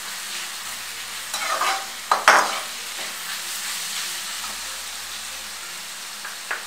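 Shredded cabbage, carrot and capsicum sizzling in oil in a metal kadai while a slotted metal spoon stirs them, with scraping strokes against the pan about a second and a half in and just after two seconds, the second the loudest.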